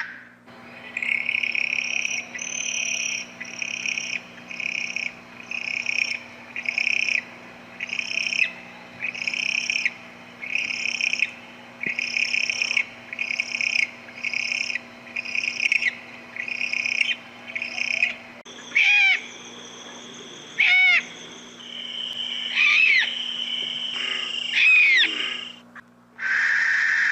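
Owl calling: a long series of short, high, evenly repeated notes, about one every three-quarters of a second. Near the end these give way to a few sliding, arched chirps.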